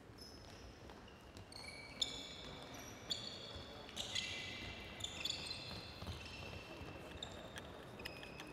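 Sports shoes squeaking on a hall floor as players move and change direction: many short, high squeaks at different pitches, busiest from about a second and a half in until around six seconds, with a few sharp knocks among them.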